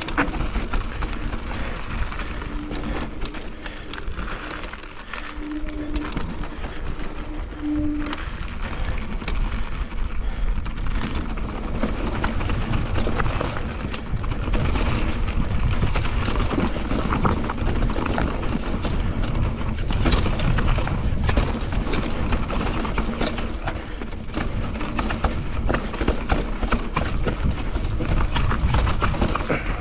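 Mountain bike descending a steep, rough trail at speed: tyres and frame rattling and knocking continuously over roots and rocks, with a low wind rumble on the helmet or chest camera's microphone.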